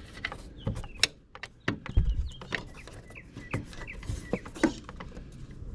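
Cable lock being handled and threaded through a trolling motor mount: a run of scattered metallic clicks and knocks, with a dull thump about two seconds in.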